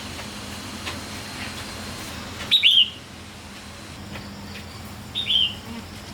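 Bird chirping: two short bursts of a few quick, falling high notes, about two and a half seconds apart, over a steady low hum.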